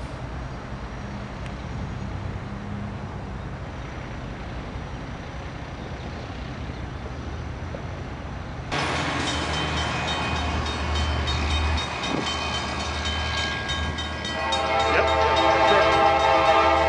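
Diesel locomotive pulling away with a low, steady engine rumble; after a cut just past halfway, an approaching train's engine rumble and, about two-thirds in, its horn sounding and growing louder.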